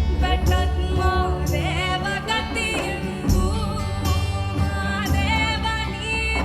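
A woman singing a Kannada devotional folk song in a gliding, ornamented melody over instrumental accompaniment with a steady low bass.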